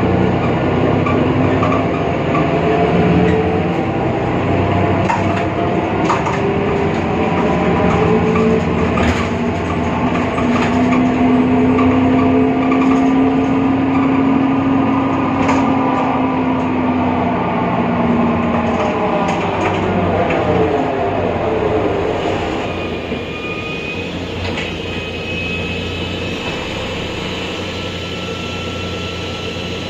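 BredaMenariniBus Avancity Plus city bus under way with a loud whine from its differential, several tones rising and holding, then falling in pitch and fading about twenty seconds in. The whine is the strange sound the owner traces to a faulty differential.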